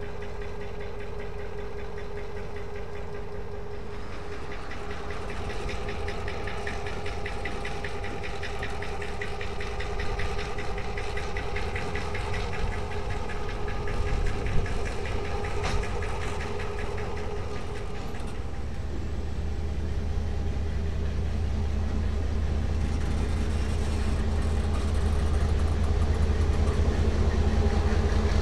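Two coupled diesel-electric locomotives running light, their engines drumming steadily and growing louder as they come close. One sharp knock about halfway, and a deep low rumble that swells from about two-thirds in.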